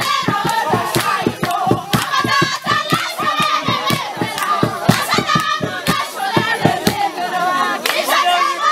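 A group of people singing together while clapping in a quick, steady rhythm, several claps a second; the clapping thins out near the end while the singing goes on.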